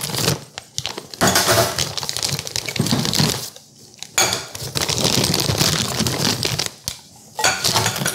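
Plastic packaging bags crinkling and rustling as cart parts are unwrapped and handled, with clinks of metal on the wire shelves. The rustling breaks off briefly twice.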